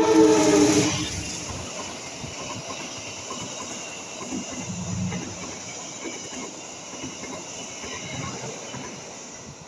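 A diesel locomotive's horn sounds a chord that cuts off about a second in as the train reaches the camera. Then the passenger train runs past, its coaches rumbling and the wheels clattering on the rails, fading near the end.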